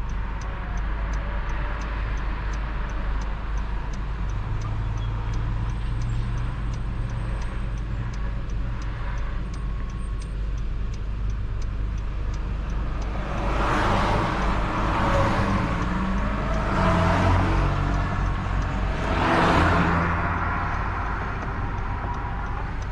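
A car moving in traffic, heard from inside: a steady rumble of engine and road noise, with faint rapid ticking in the first few seconds. Between about 13 and 20 seconds in come four louder rushes of traffic noise.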